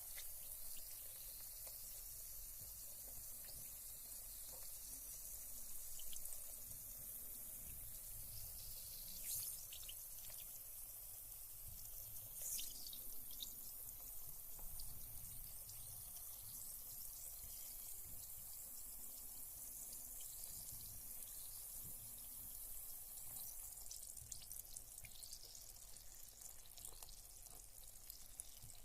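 Carbonated bath bomb fizzing in bathwater: a faint, steady fine hiss of bursting bubbles, with a few brief small water drips or splashes.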